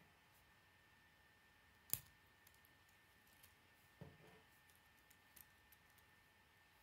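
K'nex plastic pieces clicking and knocking as the model is handled, with one sharp click about two seconds in, a softer knock about four seconds in and a few faint ticks.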